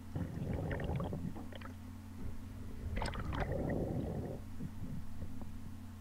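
Underwater camera audio: two bursts of bubbling, gurgling water, the second one stronger, over a steady low hum.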